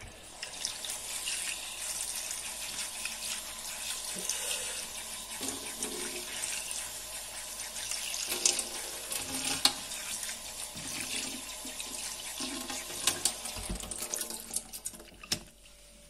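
Tap water running into a silicone ice cube tray held over a stainless steel sink, filling its cells and splashing. The water stops about a second before the end, with a few light knocks as the tray is handled.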